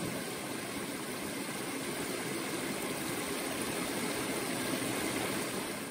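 Small waterfall: stream water pouring steadily over a low rock ledge, an even rushing sound that fades out near the end.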